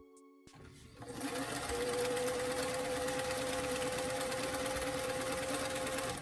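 Electric sewing machine, a black vintage cabinet model, running steadily as it stitches along a fabric sleeve edge, with a steady motor hum. It starts about a second in and runs on without a break.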